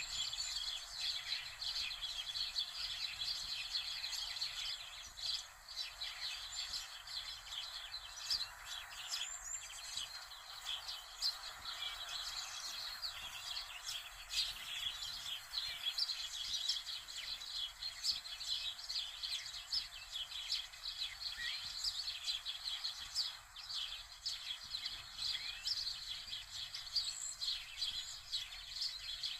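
Many small birds chirping continuously, a dense overlapping chatter of short high chirps.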